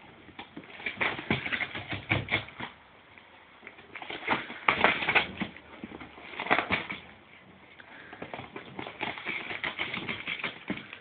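A dog tearing and scratching at a cardboard box with its teeth and paws, the cardboard ripping in several bursts with short pauses between, the loudest about five seconds in.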